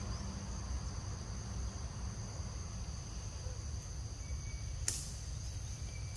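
Steady, high-pitched chorus of insects over a low rumble, with one sharp click near the end.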